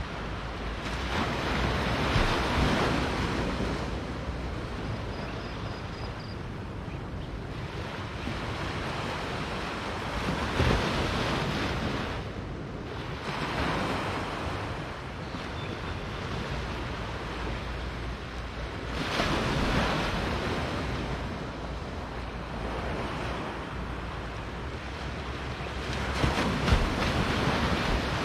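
Small waves washing onto a sandy beach, the surf swelling four times about eight seconds apart over a steady hiss, with wind rumbling on the microphone.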